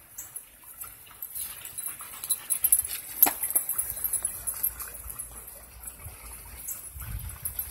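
Dogs at play, with one sharp short dog sound about three seconds in and a low rumble near the end.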